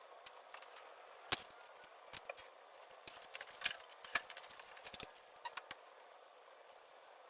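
Scattered light clicks and taps of hand tools and metal parts being handled while working on an ATV's engine, a dozen or so irregular clicks with the sharpest about a second in.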